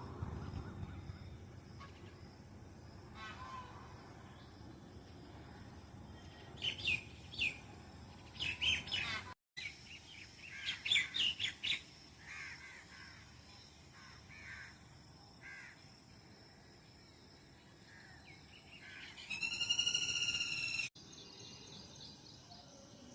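Birds chirping and calling in quick clusters of short, sharp notes that slide in pitch. About twenty seconds in comes one louder, buzzy call lasting over a second.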